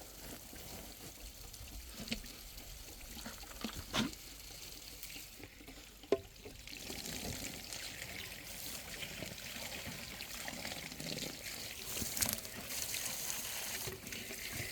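A few short knocks, then water running and pouring steadily from about halfway on.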